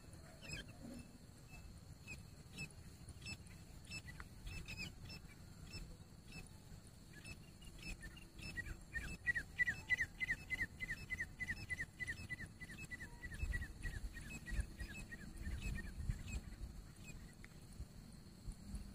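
Francolin (teetar) calling: scattered high notes, then from about eight seconds in a fast run of short, downward-sliding whistled notes, about five a second, that fades out a few seconds later, over a low rumble.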